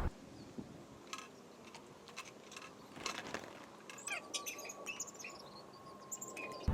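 Faint small-bird chirping with scattered light clicks. The chirps come in quick high notes over the second half, alongside a thin steady tone.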